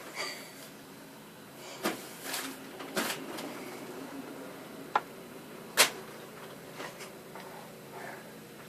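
A handful of small, sharp clicks and taps scattered irregularly over a quiet room, the loudest about three seconds and about six seconds in.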